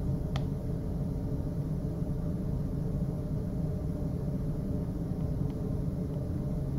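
Steady low background hum, with a faint click about half a second in.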